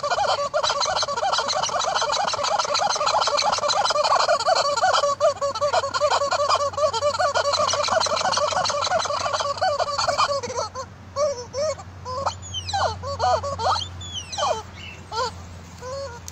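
Yellow rubber chicken toy squawking as a horse bites and chews it: a rapid, almost unbroken run of honking squawks, breaking about ten seconds in into separate short squawks with gaps between them.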